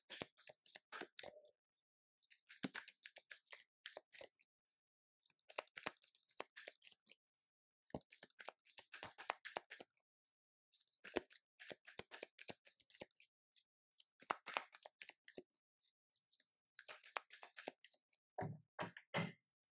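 Faint shuffling of a tarot deck in the hands: repeated bursts of quick, crisp card flicks, about seven of them with short pauses between. A brief, lower sound comes near the end.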